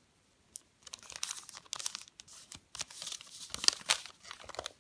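Sheet of origami paper crinkling and crackling as fingers press and adjust its accordion pleats: irregular papery crackles starting about a second in, loudest a little before the end.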